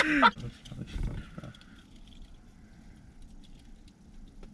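Two men laughing loudly, stopping sharply within the first half-second. After that the car cabin is quiet, with a faint low rumble and a few light clicks.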